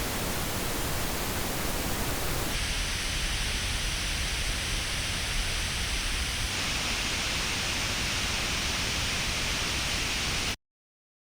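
Pink noise test signal played through earbuds and recorded on an artificial ear simulator: a steady hiss whose tone changes about two and a half seconds in and again slightly around six and a half seconds. It cuts off suddenly near the end, leaving silence.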